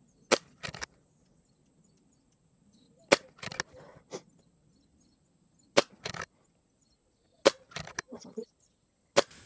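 Brocock (BRK) Sniper XR Sahara PCP air rifle firing five shots, a sharp crack roughly every two seconds. Each shot is followed by a couple of quieter clicks as the side lever is cycled to chamber the next pellet.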